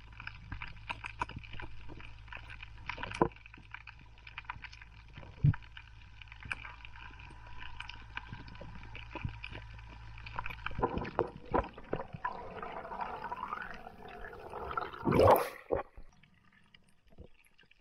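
Underwater sound picked up by a diver's camera: scattered sharp clicks and crackles over a low steady hum, then about fifteen seconds in a loud watery rush as the camera breaks the surface.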